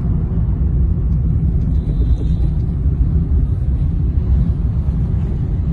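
Steady low rumble of a car's road and engine noise, heard from inside the moving car's cabin.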